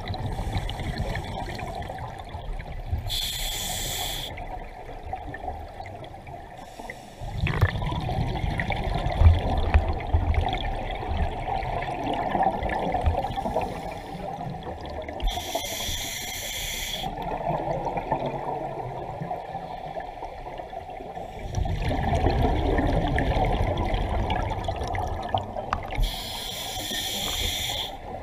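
Scuba breathing underwater through a regulator: three bursts of exhaled bubbles, each one to two seconds long and roughly eleven seconds apart, over a steady low rumble of water.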